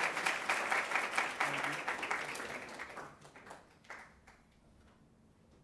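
Audience applauding. The clapping thins out about three seconds in and dies away with a few last claps around four seconds.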